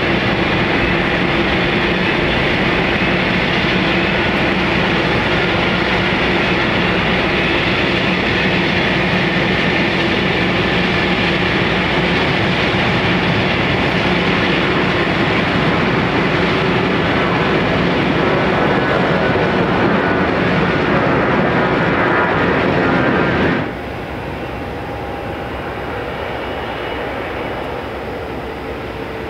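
Loud, steady whine and rumble of aircraft turbines on an airport apron. About 24 s in it cuts abruptly to the quieter, steady running of an Airbus A321neo's Pratt & Whitney geared turbofan engines as it taxis.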